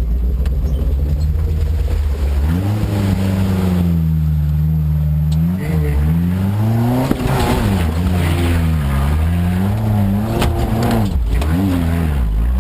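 Suzuki 4x4's engine working off-road, the revs climbing about two seconds in and holding, then rising and falling repeatedly as it is driven over the terrain, easing off near the end.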